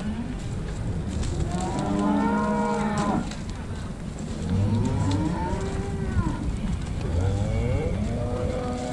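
Beef cattle mooing: three long moos in a row, each rising and then falling in pitch.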